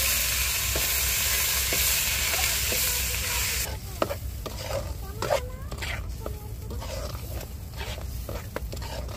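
Ground tomato, chilli, ginger and garlic paste sizzling loudly in hot oil, the sizzle cutting off abruptly about four seconds in. Then a spoon stirring in the pan with scattered clicks and scrapes.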